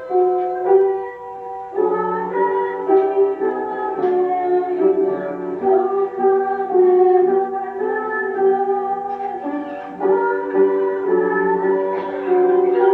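Instrumental music: a keyboard playing a slow melody over held chords.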